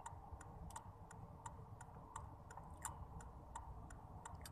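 A car's turn-signal or hazard flasher ticking evenly, about three clicks a second, over a faint low hum of the idling car.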